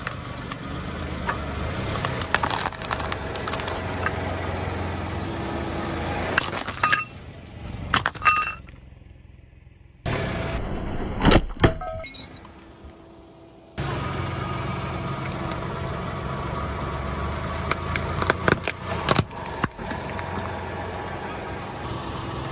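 Plastic cracking and snapping as a car tire rolls over a plastic plate of sunflower seeds, over the steady low hum of the car's engine. Later, more sharp snaps of plastic breaking as a plastic toy is crushed against the tire.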